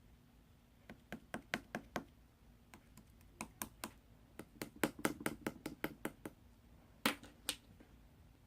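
A run of sharp, irregular clicks or taps, in loose clusters, with two louder ones near the end.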